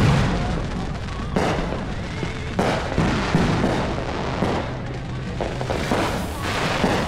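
Fireworks going off all across a city: a continuous rumble of overlapping distant booms and pops, with a sharper, louder bang about every second or so.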